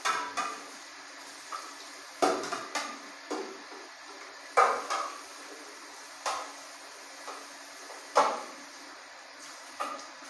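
Hard clinks and knocks like cookware or shells, uneven and about one every second or so, each with a short ring, over a steady low hum.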